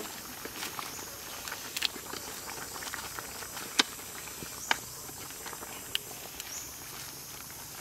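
Soup simmering in a wok over a wood fire as a wooden spatula stirs greens through it, with a steady hiss and a few sharp clicks, the loudest about four seconds in.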